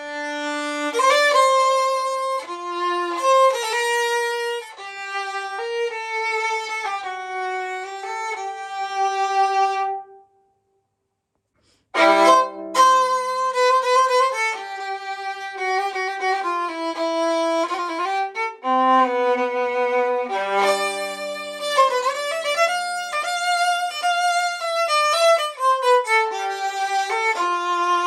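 Old 15.5-inch Stradivarius viola played with the bow: a solo melodic passage of sustained notes. The playing stops about ten seconds in, falls silent for under two seconds, then starts again with a strong attack and goes on.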